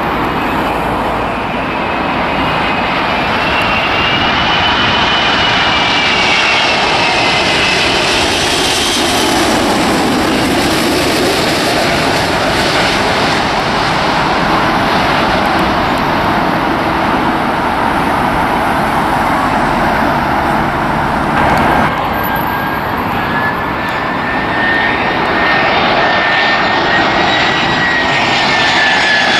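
Airbus A380's four jet engines on final approach: a loud roar with a high engine whine that falls in pitch as the airliner passes low and close. About three quarters of the way through, the sound cuts to a smaller twin-engine Airbus A320-family airliner on approach, its engine whine a steady high tone over the roar.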